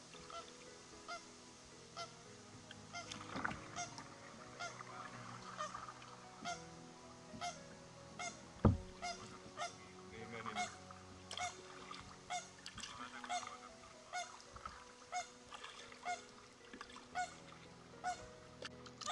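A short, squeaky honk-like sound repeats at a very even pace, about one every 0.8 seconds, in time with paddle strokes. There is one hard knock about halfway through, like a paddle striking the hull.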